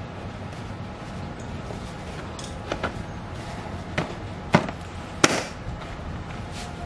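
Sharp plastic knocks and clicks as a dirt-bike seat is pressed and pushed down onto its frame and plastic rear side panel, about five in all, the two loudest a little past the middle.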